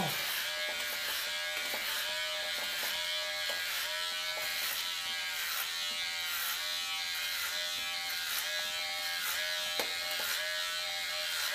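Unix electric hair clipper with a 12 mm guard running steadily through hair. Its buzz dips in pitch briefly about twice a second, with each stroke.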